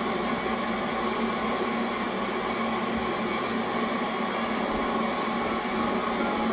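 A steady mechanical whirring hum, unchanging and without rhythm.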